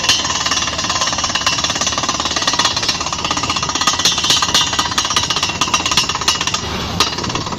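Pneumatic drilling rig running, its air hammer pounding in a rapid, steady rhythm, with one sharper knock near the end.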